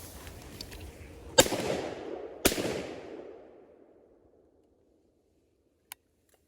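Two shotgun shots about a second apart, the second slightly quieter, each trailing off in a rolling echo that fades out over a couple of seconds.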